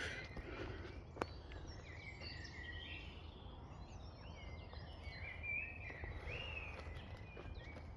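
Wild birds singing: a busy run of short chirping, warbling phrases, over a steady low rumble, with one sharp click about a second in.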